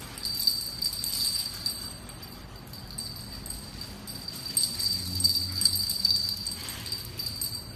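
A small bell jingling in repeated shakes as a poodle puppy moves about. It is loudest about half a second in and again around five seconds in.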